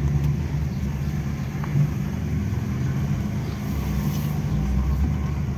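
Steady low engine hum of slow street driving, heard from inside a car's cabin, close behind a diesel tanker truck.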